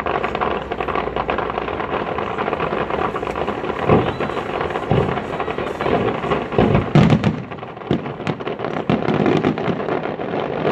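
Fireworks display: a steady dense crackling from many small bursts, with deep booms of shells going off about four, five and seven seconds in.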